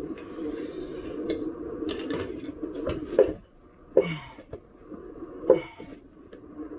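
Metal tools and wheel parts clinking and knocking during hands-on work on an electric unicycle's wheel, with a low scraping rustle at first and a few sharp knocks near the middle and later.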